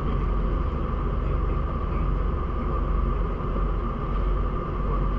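Steady low rumble of running machinery with a constant hum above it, unchanging throughout.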